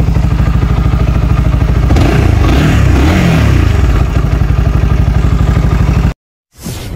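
Motorcycle engine idling with a steady pulse, revving up and settling again about two seconds in, then cutting off suddenly near the end.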